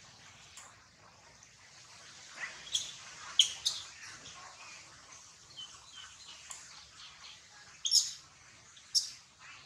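A few short, sharp, high-pitched animal chirps: three close together about a third of the way in, then two more near the end.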